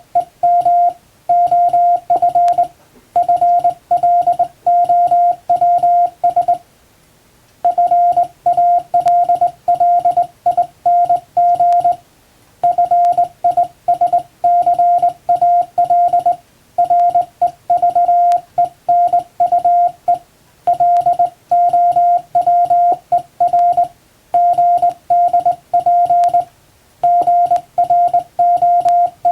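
Hand-sent English Morse code from a straight key: a single steady beep tone keyed on and off in dots and dashes, grouped into words with short pauses between them and one longer pause of about a second roughly a quarter of the way through.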